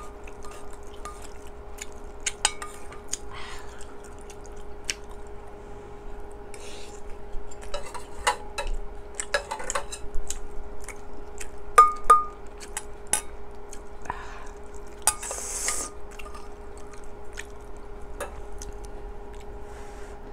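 Metal spoon clinking and scraping against a stainless steel pot and a small metal bowl while stew is ladled and eaten, in scattered sharp clinks, with a faint steady hum underneath.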